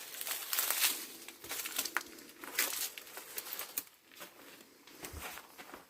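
Footsteps on loose ground, an irregular crunching and rustling that is busiest in the first three seconds and thins out after about four seconds.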